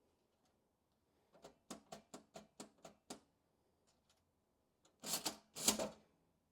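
Antique mechanical cash register, a 1914 National Cash Register Model 317, working its mechanism: a quick run of sharp clicks, about four a second, then two longer, louder clattering strokes near the end.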